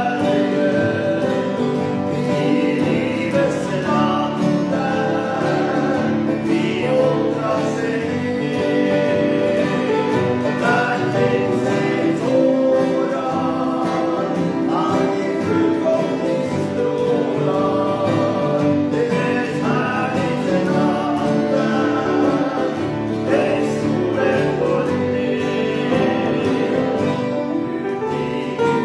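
Two men singing a Norwegian hymn together, accompanied by two strummed acoustic guitars.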